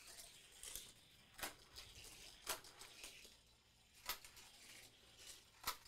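A die-cast Hot Wheels Tesla Roadster running by gravity on plastic track, faint, with four sharp clicks a second or more apart and a fainter one near the start, as it passes through the track's kicker loops.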